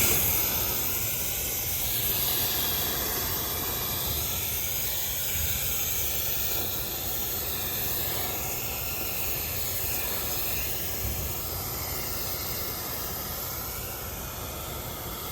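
Compressed air rushing through a dryer-vent cleaning hose into the vent duct to blow lint out: a steady, loud hiss that eases slightly over time.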